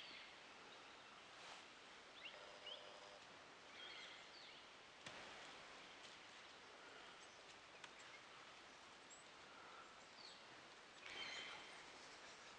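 Near silence: faint outdoor background hiss with a few short, high chirps scattered through, and a single faint click about halfway.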